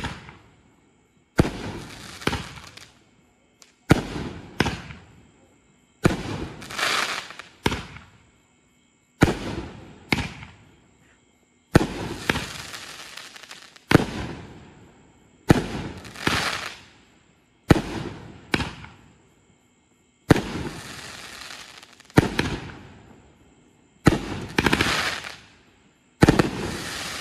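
A 16-shot, 500-gram consumer fireworks cake (Pyro Diablo 'Tough As Hell') firing shot after shot, about one every two seconds. Each shot is a sharp launch thump, followed by the shell's burst and a crackling spray that fades away before the next shot.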